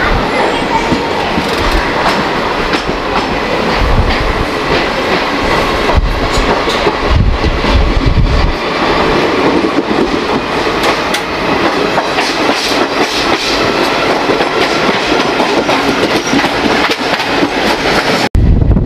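Deccan Queen passenger coach rolling out of a station, heard from its open doorway: steady wheel-on-rail running noise with repeated clicks over the rail joints. Just before the end the sound cuts abruptly to a deeper, heavier rumble.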